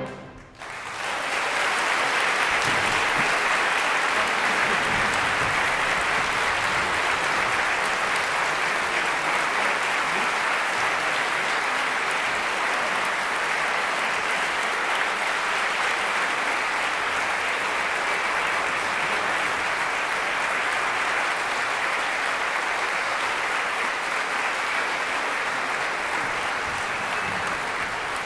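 Concert-hall audience applauding the end of an orchestral piece, breaking out about half a second in after the final chord cuts off and continuing steadily.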